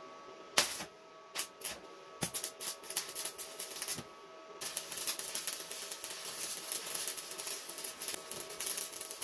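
Stick (arc) welder burning a 3.5 mm electrode. A few scattered crackles and pops come as the arc is struck, then about four and a half seconds in it settles into a steady crackling as the bead is laid.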